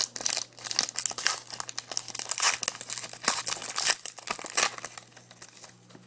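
Foil trading-card pack being torn open and crinkled by hand: dense irregular crackling and tearing, dying away about five seconds in.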